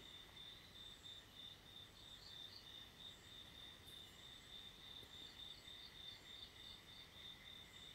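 Near silence from a digital radio that is still tuning and has not yet decoded any audio, with only a faint, high-pitched chirping tone that pulses a few times a second.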